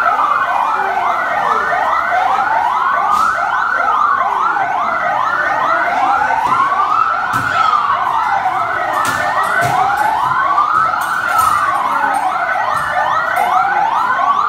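Fire truck siren sounding continuously: a slow wail rising and falling about every three and a half seconds, overlaid with a fast yelp of quick rising sweeps, about four a second.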